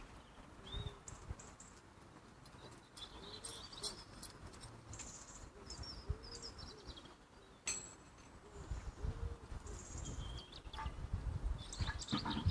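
A pigeon cooing in a repeated series of low, arched notes, with small birds chirping high above it. A sharp click comes about eight seconds in, and low rumbling follows toward the end.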